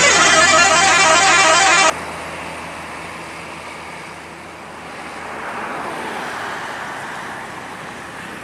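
A bus's telolet horn playing a warbling multi-tone tune, cutting off sharply about two seconds in. Road traffic noise follows, swelling and fading as a vehicle goes by.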